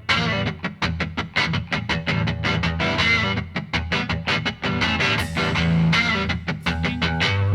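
Background music: fast picked electric guitar over a steady bass.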